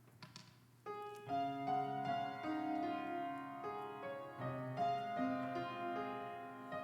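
Piano playing the introduction to a choir anthem, a slow run of sustained chords that begins about a second in, just after a brief rustle.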